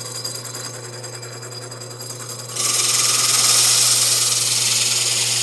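Drill press running with a hole saw. About two and a half seconds in, the saw bites into the plywood plate, and a loud, steady, high cutting noise sets in over the motor's hum.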